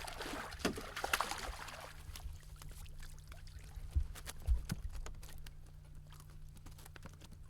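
Water splashing and sloshing as a hooked lake trout is brought to the surface beside the boat, loudest in the first two seconds, with scattered light knocks and two low thumps midway over a steady low hum.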